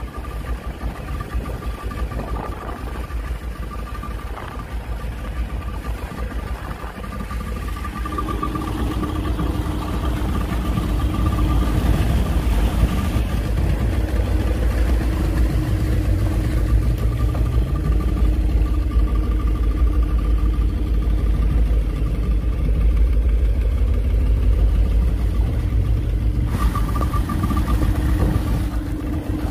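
Outboard motor of a small fishing boat running under way, with wind and water rushing along the hull; it gets louder, with a steadier engine note, about eight seconds in.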